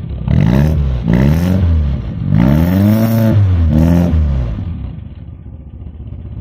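1973 Fiat 124 Special's 1400 cc four-cylinder carburetted engine revved through a racing exhaust, heard at the tailpipe: four throttle blips, each rising and falling in pitch, the third held longer. It then settles back to idle about four and a half seconds in.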